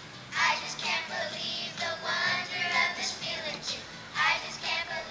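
A group of children singing together from song sheets, in phrases with short breaks between them.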